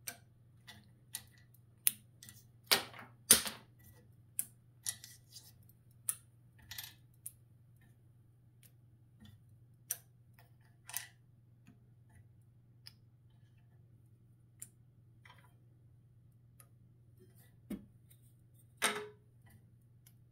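Small cut wooden blocks clicking and clacking against each other and the bandsaw's metal table as they are picked up and stacked, in irregular bursts, busiest about two to four seconds in, with a louder clack near the end. A faint steady low hum runs underneath.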